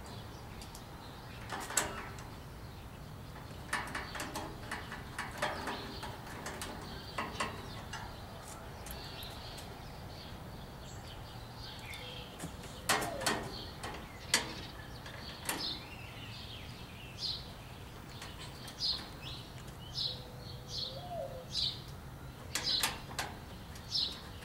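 Scattered light metallic clicks and knocks as screws, washers and a cross bar are fitted by hand to a Weber Spirit E-210 gas grill's sheet-metal frame. A bird chirps repeatedly in short calls from about nine seconds in, over a low steady hum.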